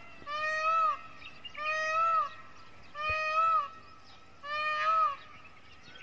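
Indian peafowl calling: a series of four loud, cat-like calls about a second and a half apart, each a single note that rises and falls.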